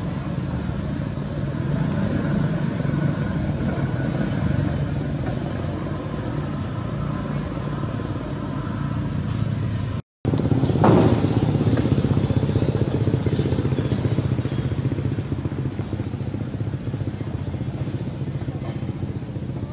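Motorbike engines running steadily. Just after a brief dropout about halfway, a short sound falls quickly in pitch, and the engine hum carries on.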